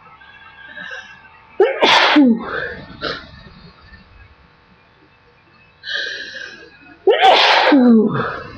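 A woman sneezing twice, about five seconds apart, in deliberately induced sneezes. Each sneeze opens with a sharp burst after a breathy intake, and its voiced tail falls in pitch.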